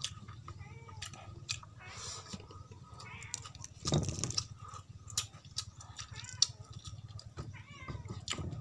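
Close-up eating sounds of fried rabbitfish (kitong) being picked apart with the fingers and eaten: a run of small clicks and crackles, with one louder thump about four seconds in. Short rising-and-falling animal calls sound several times in the background.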